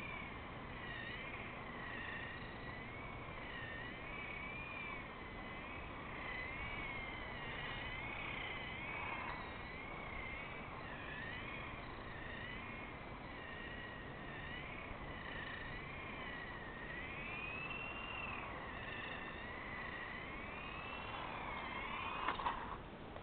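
Remote-controlled car's motor whining, its pitch rising and falling over and over as the car speeds up and slows down. A short sharp knock near the end.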